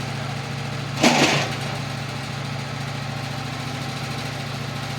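Small engine idling steadily, with a loud, sudden clatter about a second in.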